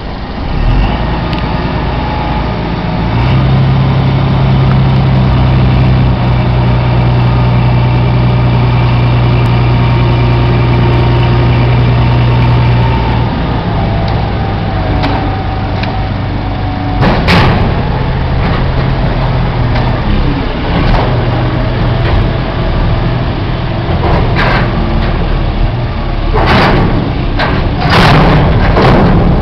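Diesel engine of a reach stacker running under load as its hydraulics lift and lower a shipping container. A strong steady hum holds for about ten seconds, then eases. In the second half there are a few short, loud knocks or bursts as the container is set down on the trailer.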